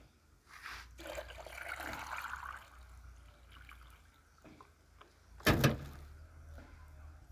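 Water being poured into a chick drinker bottle, strongest for the first few seconds, with a loud knock about five and a half seconds in.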